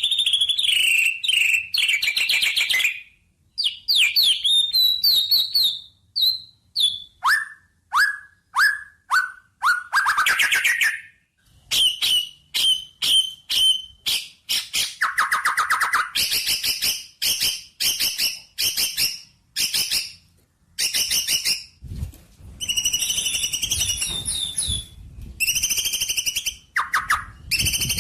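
A songbird singing a loud, varied song: runs of fast chirps and trills, short whistled notes that slide downward, and brief pauses between phrases.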